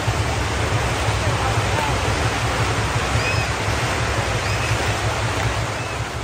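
Fireworks going off in a dense, continuous crackling barrage.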